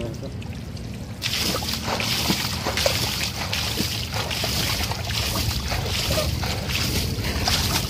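Water splashing and sloshing, beginning about a second in as a dense hiss with many small splashes, over a steady low rumble.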